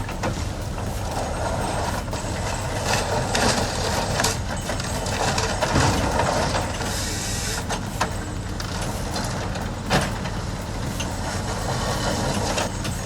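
A heavy engine running steadily, with scattered knocks and clanks, a brief hiss about seven seconds in and a sharp knock near ten seconds.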